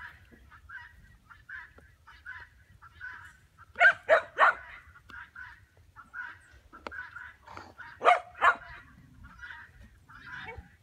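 Geese honking: a flock calling steadily in short notes, with two louder groups of two or three honks about four and eight seconds in.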